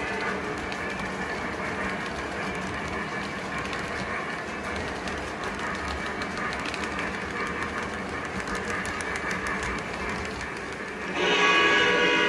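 Lionel O-gauge passenger cars rolling steadily over three-rail track with light clicking. Near the end, the Lionel Legacy Santa Fe 2926 4-8-4 locomotive's sound system sounds a loud, held multi-tone steam whistle.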